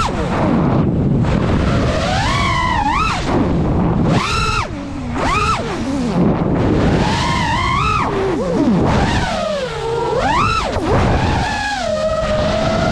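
FPV racing quadcopter's brushless motors whining, the pitch swooping up and falling back again and again as the throttle is punched and cut during flips and dives, over a steady rushing noise. Near the end the whine levels off into a steadier tone.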